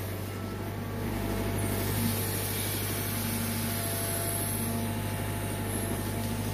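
Caterpillar 320GC excavator's diesel engine running steadily with an even low hum, heard from inside the cab.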